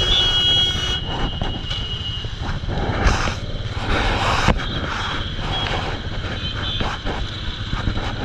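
Roadside vehicle noise: a steady low engine rumble, with road noise that swells and fades several times as vehicles pass.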